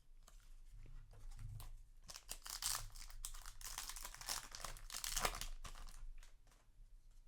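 Crinkling and rustling of a foil booster-pack wrapper being handled, with a brief tearing sound; busiest from about two to six seconds in.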